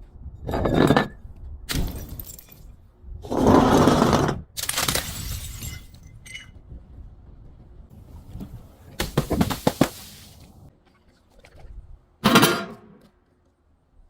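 Glass breaking and crunching in about six loud separate breaks, one of them, a little past the middle, a quick run of cracks.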